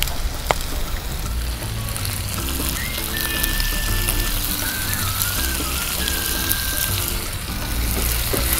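Chicken pieces, sliced onion and curry leaves sizzling steadily as they fry in oil in a pan, under background music.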